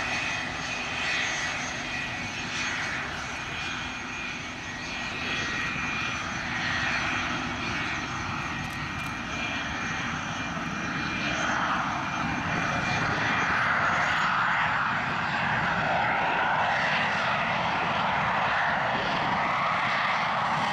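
English Electric Lightning's twin Rolls-Royce Avon turbojets running on the ground: a steady rushing noise with a high whine over it. It grows louder a little over halfway through.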